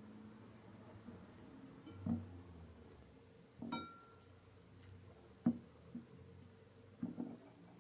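Banana chunks dropping into a glass bowl and fingers knocking against it: a handful of soft, separate taps and light clinks, one with a brief glassy ring.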